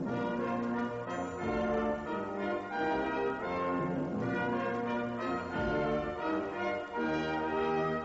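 Orchestral music with brass and ringing bell tones over held chords.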